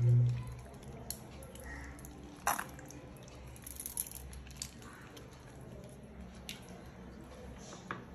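Soft wet drips and squelches, with a few light clicks, as marinade ingredients go into raw mutton in a bowl. A brief low hum sounds right at the start.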